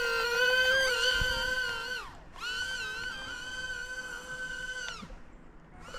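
Small electric RC airplane's motor and propeller whining at a steady high pitch under power. The whine drops out for a moment about two seconds in, returns, then cuts off about five seconds in.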